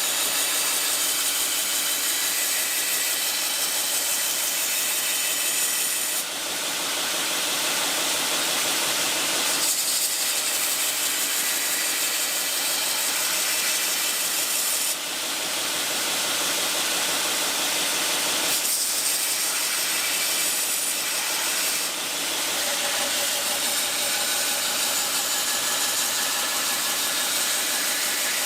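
Belt grinder with a fresh 80-grit belt grinding the bevel of a steel kitchen knife blade: a steady, harsh hiss of abrasive on steel over the motor. The sound briefly dips three times, about 6, 15 and 22 seconds in.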